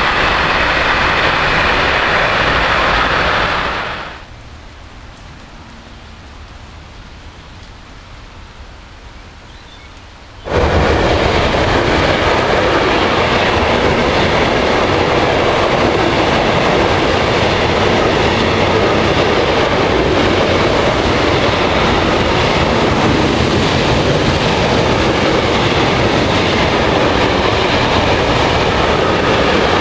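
A train passing close by on the Rhine line, a loud steady rolling rumble of wheels on rail that dies away about four seconds in. About ten seconds in, the loud rolling noise of another passing train comes back suddenly and holds steady.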